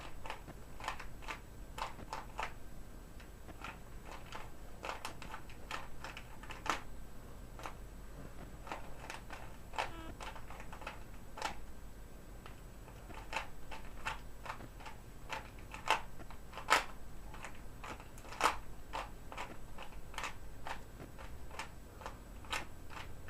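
Rubik's Cube's plastic layers being turned by hand, a rapid irregular clicking and clacking with a few louder snaps about two-thirds of the way through.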